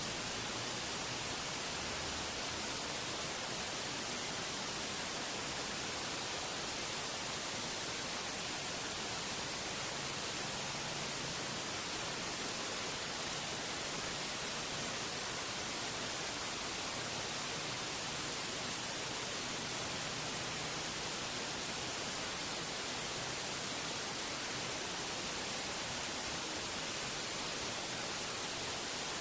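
Steady static-like hiss, strongest in the high end, with no change and no other sound standing out.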